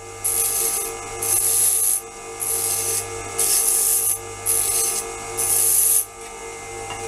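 Bench grinder motor running with a steady hum while a diamond-wheel segment is drawn across the spinning abrasive wheel in about six hissing scrapes, roughly one a second, stopping about six seconds in. The wheel is being cleaned of metal residue and trued before sharpening.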